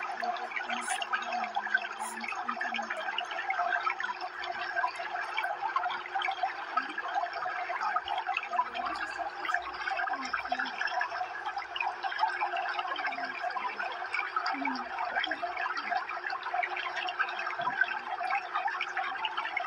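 Aquarium water bubbling steadily, a dense stream of small bubbles popping and trickling at the surface, over a faint low hum.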